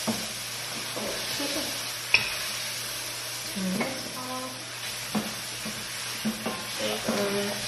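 Food sizzling as it fries in butter in a pan on the stove, with a utensil stirring and clicking against the pan a few times; the loudest click comes about two seconds in.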